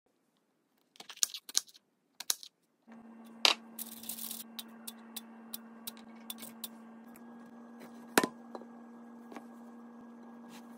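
Food-prep clicks and taps: a few sharp clicks, then from about three seconds a steady low hum with scattered light taps and clicks over it.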